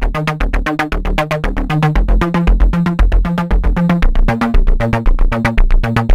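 Background electronic music: a synthesizer bass line stepping between a few notes over a fast, steady beat.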